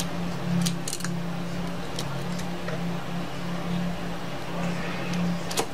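A few small, sharp clicks and taps as tape is peeled off a tablet's opened internals and parts are handled, over a steady low hum.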